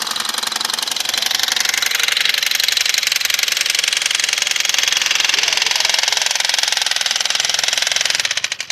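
Power tool running steadily with a fast, even rattle, then shut off near the end.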